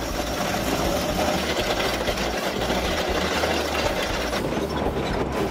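Excavator-mounted rock wheel, a toothed hydraulic grinding wheel, cutting into rock, a steady dense grinding with the machine's engine running under it.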